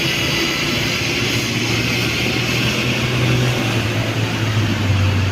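Diesel engine of a passing bus droning as it climbs, its low note dropping about four to five seconds in, with a steady hiss of tyres and air.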